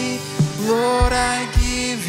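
Live worship music: a male voice singing held, gliding notes over a strummed acoustic guitar, with a low thump about every half second.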